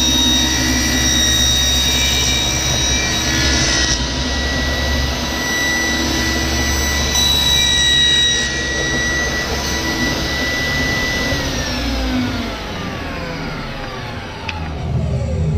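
Table saw running at speed with a steady high whine while ripping a thin plywood panel. About 11 seconds in the saw is switched off and the whine falls steadily in pitch as the blade coasts down.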